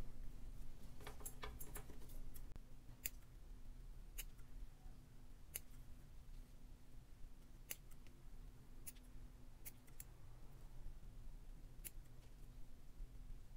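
Small scissors snipping leaves off stevia stem cuttings: quiet, sharp single snips at irregular intervals, about ten in all, with a quick cluster of them about a second in. A faint steady hum runs underneath.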